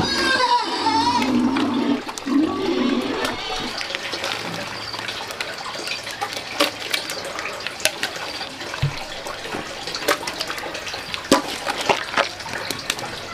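Thick mash boiling in a large pot, bubbling and popping over a steady rush of steam. A wavering pitched call or voice sounds over the first couple of seconds.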